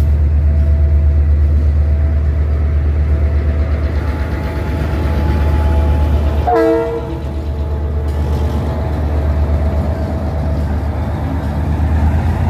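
Diesel locomotive passing close by at low speed, its engine throbbing heavily with an even pulse as it hauls passenger coaches. A short horn toot sounds about halfway through.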